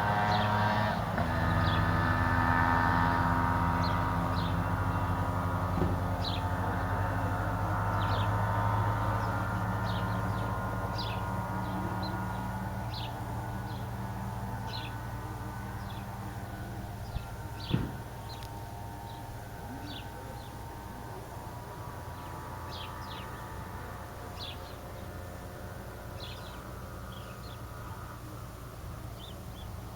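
Tomos APN 6S moped's small two-stroke engine running away into the distance, its note dropping slightly in pitch near the start and fading steadily. Short high bird chirps come and go over it, with one sharp click about eighteen seconds in.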